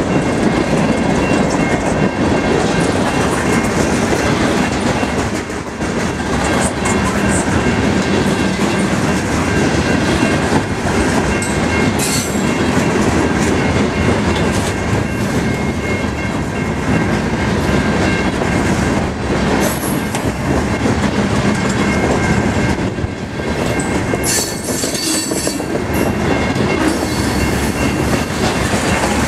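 Freight cars of a long train rolling past close by: coil steel cars, gondolas and covered hoppers. Their wheels make a steady rumble and a clickety-clack over the rail joints, with a few sharp metallic clanks about twelve seconds in and again near the end.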